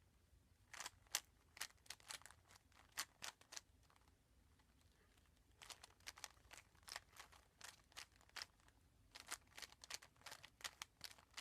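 Plastic speed cube being turned by hand: runs of soft, quick plastic clicks from the layers snapping round, in three spells with short pauses between.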